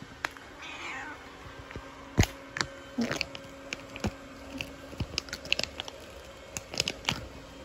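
Domestic cat meowing once, briefly, about a second in, followed by a scattered run of sharp clicks and taps, the loudest about two seconds in.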